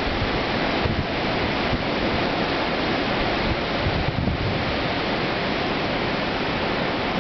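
Hurricane-force storm wind rushing steadily through trees, with gusts buffeting the microphone in low, irregular thumps.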